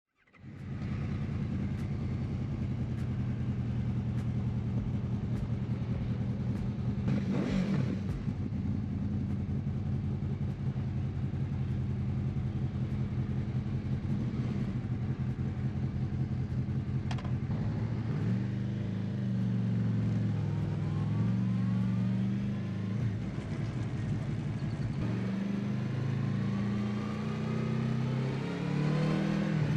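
Honda VFR800F's V4 VTEC engine breathing through a full exhaust system. It runs at a steady idle, and from about two-thirds of the way in its revs rise and fall under throttle blips, with a rise near the end.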